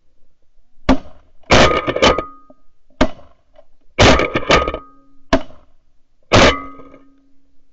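Repeated shotgun blasts at geese flying over a decoy spread, in quick succession over about six seconds. Some come singly and some in close bunches of two or three.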